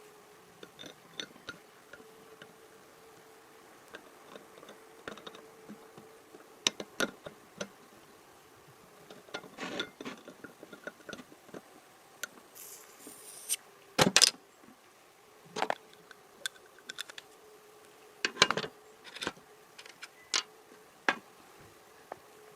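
Irregular clicks, knocks and short scrapes of small objects being handled, loudest a little past the middle and again near the end, over a faint steady hum.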